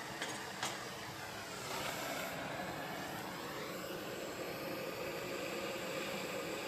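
A single click near the start, then a handheld propane torch burning with a steady hiss, growing a little louder about two seconds in.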